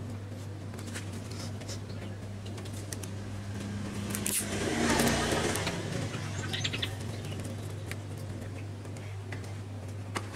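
Hands handling LED wire lights and a roll of clear tape on a bicycle frame: small scattered clicks and rustles, with a louder noisy swell for about two seconds around the middle, over a steady low hum.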